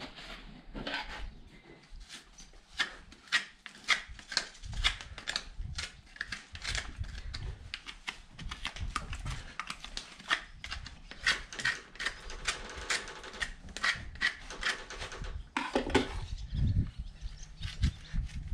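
Hoof knife paring the sole of a horse's hoof: a run of short, crisp scrapes in quick repeated strokes as horn is cut away.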